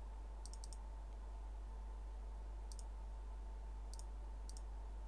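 A few faint computer mouse clicks: a quick cluster of three about half a second in, then single clicks spread through the rest. A faint steady electrical hum lies under them.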